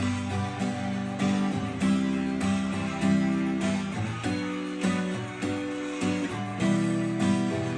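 Acoustic guitar strummed in a steady rhythm, changing chords every second or so.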